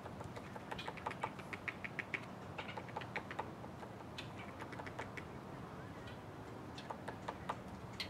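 Woodpecker pecking at a pine branch: sharp, irregular taps in a quick run through the first few seconds, a few scattered ones, then another short cluster near the end.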